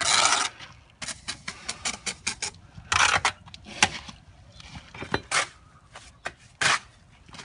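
Steel brick trowel scraping through and tapping a bed of wet mortar on top of a brick course as it is spread and furrowed. It comes as a series of short scraping strokes and sharp taps, the loudest right at the start and about three seconds in.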